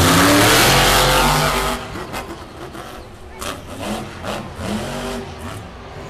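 Lucas Oil Crusader monster truck's supercharged V8 revving hard at full throttle, its pitch climbing, then dropping back about two seconds in to quieter revving that rises and falls.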